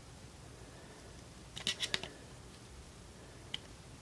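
Small hard objects clicking and clacking: a quick cluster of clicks about halfway through and one faint tick near the end, against low room tone.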